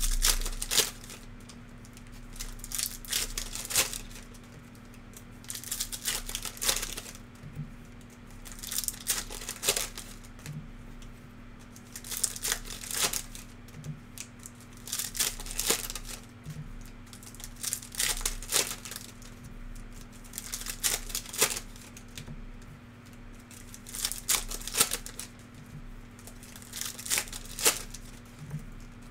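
Basketball trading-card packs being torn open one after another, the wrappers crinkling and tearing in bursts every two to three seconds, over a steady low electrical hum.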